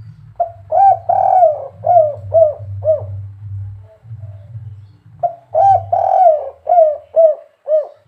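Spotted dove (derkuku) cooing: two phrases, each a few coos with a longer, drawn-out note in the middle and ending in three short, evenly spaced notes, the 'kuk 3' song type.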